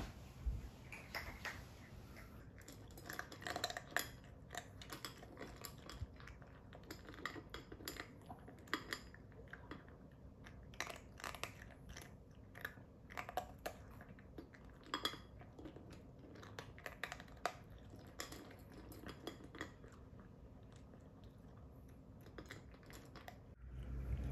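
A cat crunching dry kibble from a stainless steel bowl: irregular, crisp crunches several times a second that keep going for about twenty seconds, stopping a little before the end.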